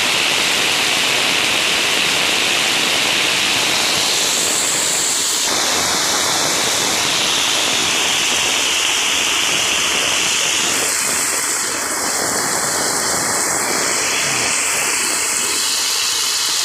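Loud, steady rush of muddy floodwater pouring along a path and across a road in heavy rain, spilling out of a roadside drain too small to take the flow.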